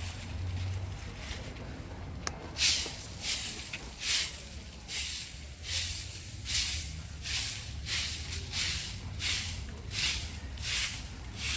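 Rhythmic swishing strokes, about three every two seconds, starting a couple of seconds in over a low steady rumble.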